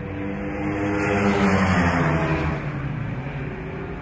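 A racing motorcycle engine passes by at speed. It grows louder to a peak about one and a half seconds in, then its pitch drops as it goes past and fades.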